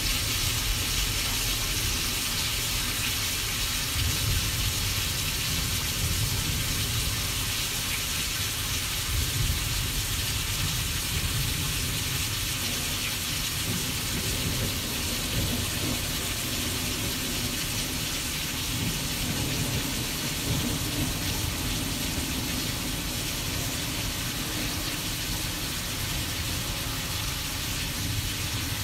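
Simulated thunderstorm soundscape: a steady rain-like hiss over a continuous, uneven low rumble.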